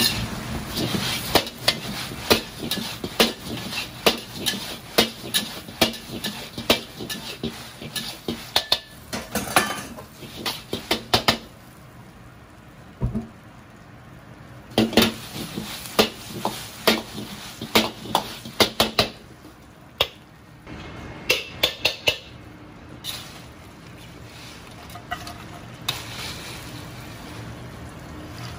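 Metal ladle clanking and scraping in an iron wok while tossing dried chilies with lobster, crab and chicken wings in a stir-fry. Quick runs of strikes for about the first eleven seconds, a short pause, another run, then only a few scattered clanks and scrapes.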